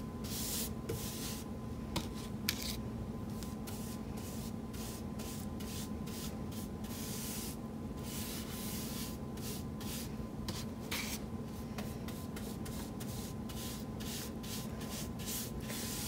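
Chip brush stroking chalk paint onto a pressboard tabletop: a run of short, scratchy back-and-forth brush strokes at an uneven pace, over a faint steady hum.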